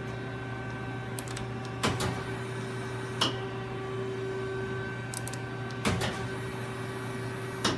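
Johnford ST-40A CNC lathe turret indexing: four sharp clunks as the tool turret turns and locks into position, over the steady hum of the running machine.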